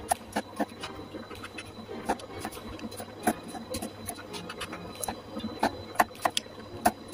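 Chef's knife dicing carrots on a plastic cutting board: irregular sharp knocks of the blade on the board, about two or three a second.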